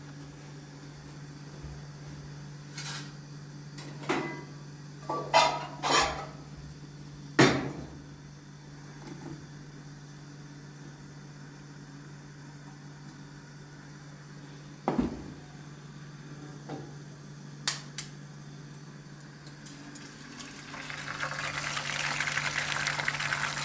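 Pots and dishes being handled: a string of sharp clinks and knocks, the loudest about seven seconds in, over a steady low hum. Near the end a steady hiss builds up.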